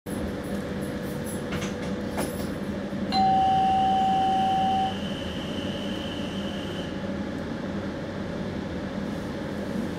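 Train cab's doors-closed signal bell sounding one clear tone for under two seconds, about three seconds in: the signal that the doors are closed and the train may depart. It sounds over the steady hum of the cab.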